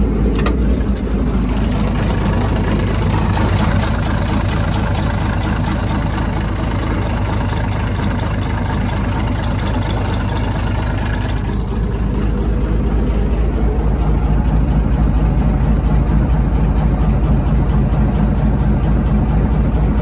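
Komatsu WA180 wheel loader's diesel engine running with a rod knock, the sign of a failed connecting-rod bearing that the owner takes to mean the engine is done for. It runs steadily and gets a little louder about two-thirds of the way through.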